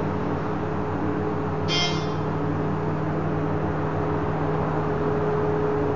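ThyssenKrupp passenger elevator cab travelling upward with a steady machinery hum, and a single short chime about two seconds in.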